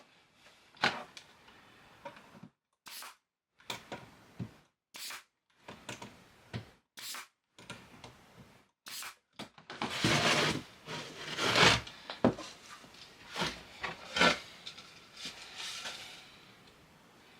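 Plywood parts being handled and fitted together on a workbench: a run of separate wooden knocks, scrapes and rubs, with a louder, longer stretch of scraping about ten seconds in.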